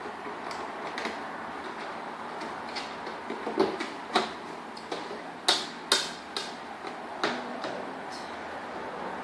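Irregular clicks and taps of packaging being handled, a dozen or so, the sharpest in the middle, over a steady background hiss.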